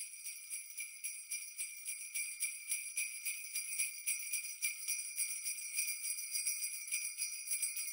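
Sleigh bells jingling, shaken quickly and evenly at about five shakes a second with a bright, steady ring.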